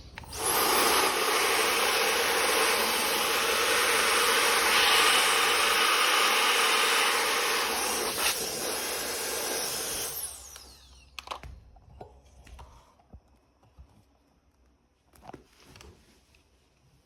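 Electric turbo fan spinning up to a loud, steady rush of air, running for about ten seconds, then switched off and winding down with a falling whine. A few light knocks follow.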